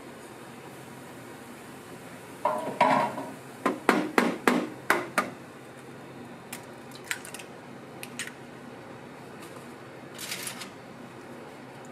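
Sharp knocks and clatters of kitchen utensils at a crepe griddle, bunched about three to five seconds in, then a few lighter taps as an egg is cracked onto the crepe, over a steady background hiss.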